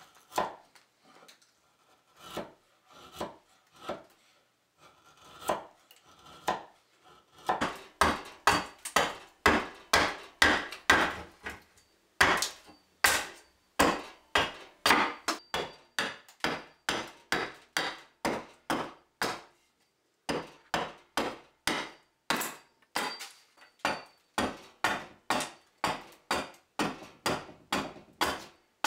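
Mallet driving a chisel to chop a mortise in a pine upright: sharp wooden knocks, a few scattered taps at first, then a regular run of about three blows a second with two short breaks.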